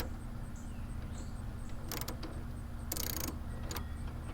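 Ratchet socket wrench clicking in a few short bursts, tightening the throttle cable clamp on a carburetor.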